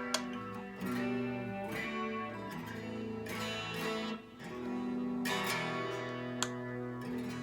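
Ibanez Mikro Destroyer short-scale electric guitar played through a Boss Katana 50 Mk II amp: strummed chords ring out, with a new strum about every second or so and a sharp pick attack near the start and near the end.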